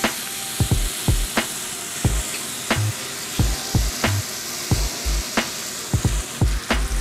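Beef bacon strips sizzling as they fry in a hot nonstick pan, a steady hiss, with a regular beat of low thumps, about two a second, running through it.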